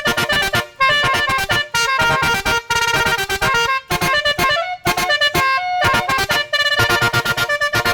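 Nine-trumpet basuri musical air horn playing a quick tune of short, changing-pitch horn notes, with a few brief pauses between phrases.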